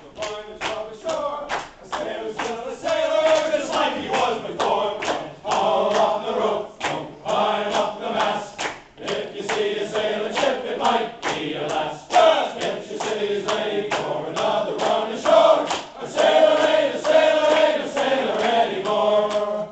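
A group of singers performing a sailor song together, with steady hand clapping in time, about three claps a second.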